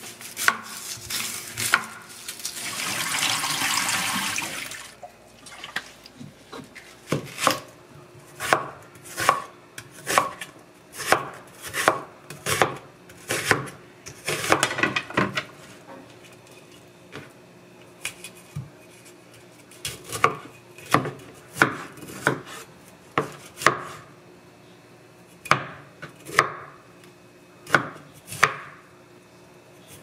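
Kitchen knife chopping onion and broccoli on a wooden cutting board: a long series of sharp knocks, bunched closely in some stretches and spaced out in others. A few seconds of steady hiss comes about two seconds in, before the chopping starts.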